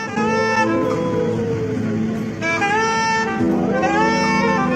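Saxophone playing a slow melody, with a dog howling along in high wails that rise and fall, one after another.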